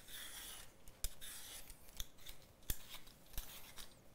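Vegetable peeler scraping strips of skin off a raw sweet potato, stroke after stroke, with sharp clicks about once a second.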